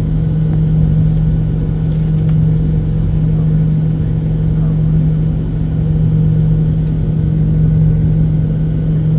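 Steady cabin drone of a Boeing 737-800 with its CFM56-7 engines running: a strong, even low hum under a rumble that holds level throughout.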